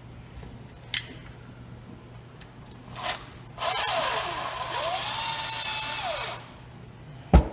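Power drill run briefly about three seconds in, then run for about three seconds, its motor pitch rising, holding and falling away. A sharp knock comes near the end.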